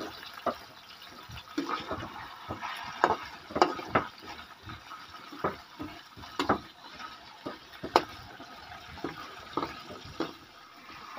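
Frogs and eels frying in oil in a steel wok, a steady sizzle, with a metal spatula scraping and knocking against the pan at irregular moments as the food is stirred.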